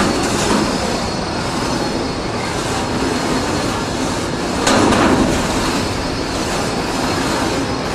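Beetleweight wedge combat robots driving in the arena: a steady mechanical rattling and grinding from their drive motors, with metal scraping on the arena floor. A louder burst of scraping or a collision comes about five seconds in.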